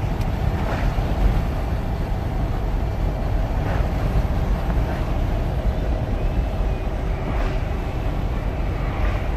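Steady road and wind noise inside a moving vehicle with the front window open: a constant low rumble of engine and tyres, with wind rushing past the open window now and then.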